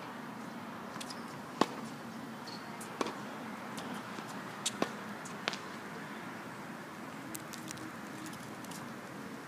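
Tennis ball being struck by racquets and bouncing on a hard court: a handful of sharp pops a second or so apart, the loudest about one and a half seconds in, over steady outdoor hiss.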